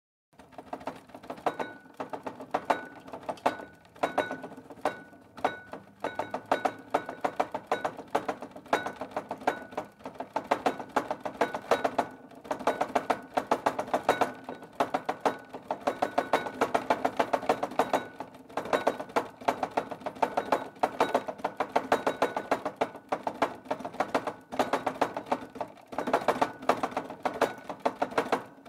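Objects rattling and knocking together on a shaking shelf: a dense, continuous clatter of small hard knocks with a faint ring under it, swelling and easing in waves, like things jostling in an earthquake.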